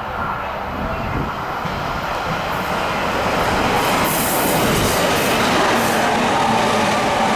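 A Tokaido Line train running along the station platform. The rail noise grows louder over the first four seconds, then holds steady.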